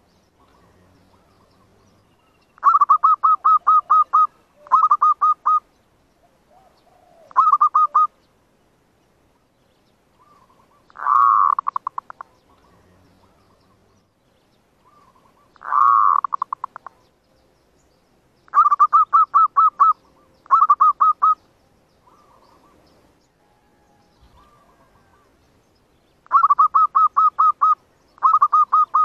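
Zebra dove (perkutut/merbuk) calls: repeated bouts of rapid, staccato coos, each a quick string of short notes lasting about a second. Twice, about 11 and 16 seconds in, comes a louder rolling call that trails off into fading pulses. This is the dove's cooing used as a lure to excite rival doves into approaching the decoy perch.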